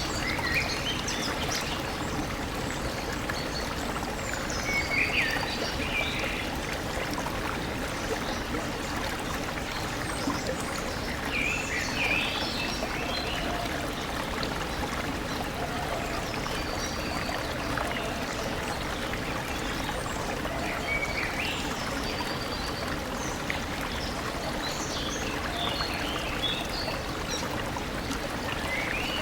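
A stream running steadily, with birds giving short high chirping calls every five to ten seconds.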